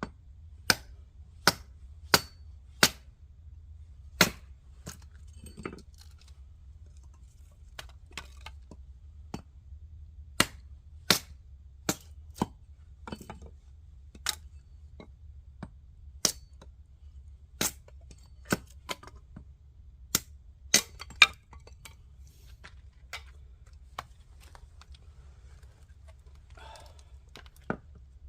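Oak firewood being broken apart: a series of sharp, separate cracks and knocks at irregular spacing, about twenty in all, some coming in quick runs, over a faint steady low hum.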